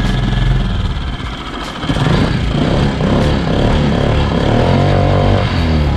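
Newly installed outboard motor running on its first try-out. It is throttled up about two seconds in, holds a steady higher note, then its pitch drops back near the end.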